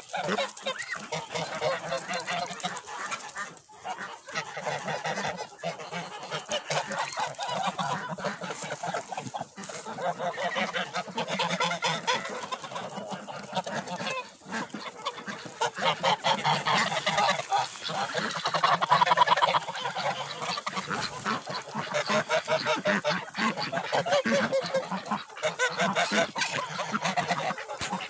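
Domestic geese honking and cackling almost without pause, loudest about two-thirds of the way through.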